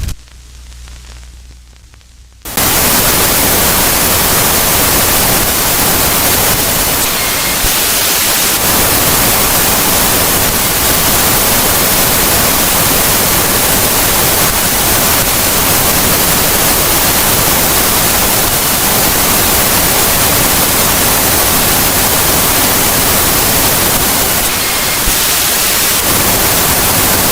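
Loud, steady static hiss, like a television or radio with no signal, that cuts in suddenly about two and a half seconds in after a faint low hum, and stops abruptly at the end.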